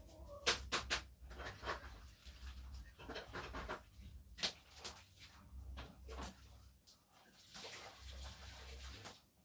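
Irregular clicks, taps and knocks of things being handled at a kitchen table, over a low rumble.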